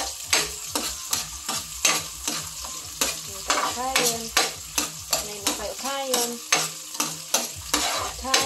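A metal ladle scrapes and clinks against a wok in quick, regular strokes, about three a second, while garlic, green onion and green chili sizzle in hot oil. This is the sauté of the aromatics at the start of a dish.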